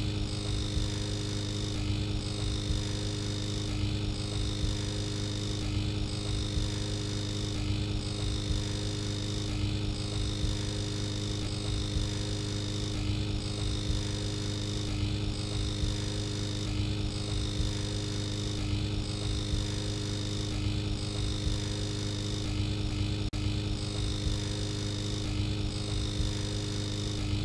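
A steady hum with several held tones and a faint pulse about once a second, unchanging in level.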